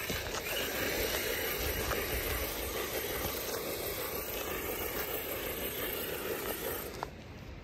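Radio-controlled truck driving on loose gravel and dirt: a steady hiss of tyres churning the gravel, easing off about seven seconds in.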